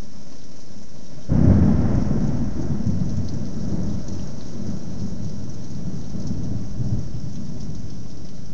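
Rain falling steadily, then about a second in a sudden loud clap of thunder that rumbles on low for several seconds over the rain.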